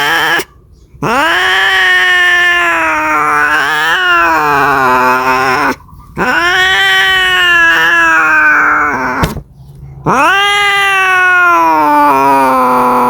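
Domestic cat caterwauling: long, drawn-out yowls, each several seconds long, with brief pauses between them. Each yowl rises in pitch at the start, wavers, then falls away at the end.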